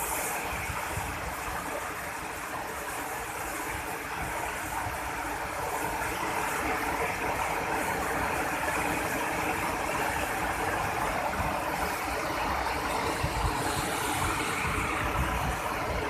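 Waterfall: a steady rush of falling water with a low rumble underneath.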